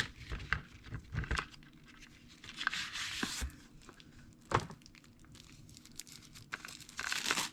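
Packaging being handled and unwrapped: crinkling and rustling with scattered light clicks and knocks.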